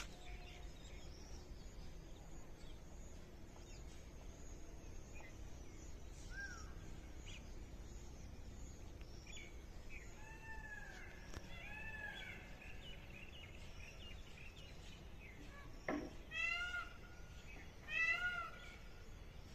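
Indian peafowl calling in open village countryside: a few short, meow-like calls about ten seconds in, then two louder runs of quick repeated calls near the end, over faint background birdsong.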